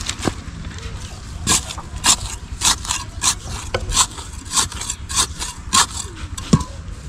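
Repeated short scrapes of a small hand tool working dry, crumbly soil while a seedling is planted, about two or three strokes a second, with one duller knock near the end.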